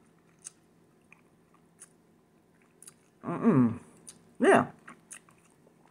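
Soft, scattered mouth clicks of a person chewing a mouthful of shrimp noodles. About three seconds in, two short murmured sounds of her voice without words stand out above the chewing.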